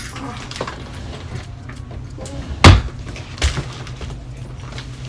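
Two knocks over a steady low hum: a loud, sharp one a little past halfway and a lighter one under a second later, with faint ticks before them.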